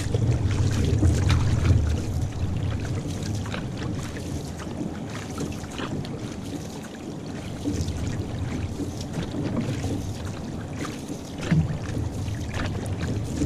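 Water washing and splashing along an outrigger canoe's hull and float as the crew paddles, with irregular splashes from paddle strokes. A low wind rumble on the microphone is heaviest in the first couple of seconds.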